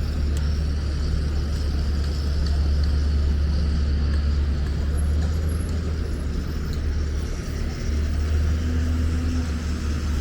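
Street traffic noise with a steady low rumble.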